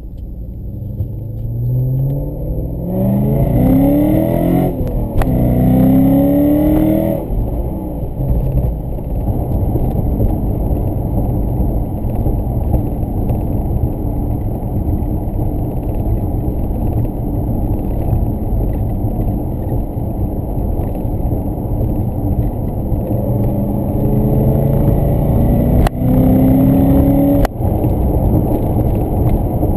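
BMW E39 540i's naturally aspirated 4.4-litre V8, decatted and breathing through a Reuter Motorsport exhaust, heard from inside the cabin. About a second in, the engine note climbs hard through the revs, breaks briefly at a gear change and climbs again, then drops off. It settles into a steady drone while cruising, and near the end pulls up twice more across another gear change before backing off.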